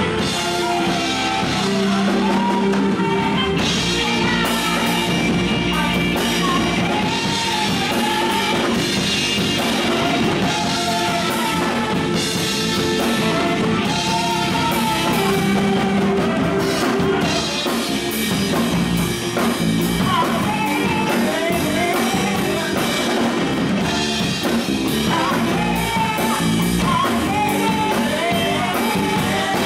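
Live rock band playing: two electric guitars, drum kit and keyboard, with women singing the melody into microphones.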